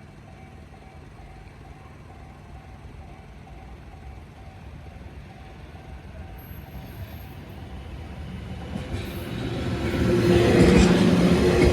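Level crossing alarm ringing with an even, repeating ding. The rumble of the JR East E001 series Shiki-shima train grows steadily louder, covers the bell, and peaks as the train reaches the crossing near the end.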